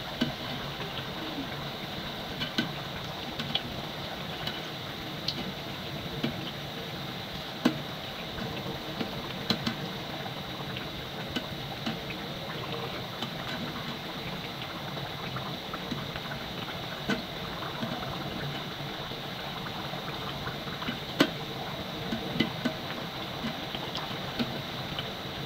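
Mandazi deep-frying in hot cooking oil: a steady sizzle of bubbling oil, with scattered sharp ticks.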